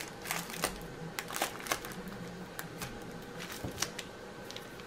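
Light, scattered clicks and crinkles of plastic packaging being handled on a wooden table: a rolled diamond-painting canvas in its plastic sleeve. The handling thins out toward the end.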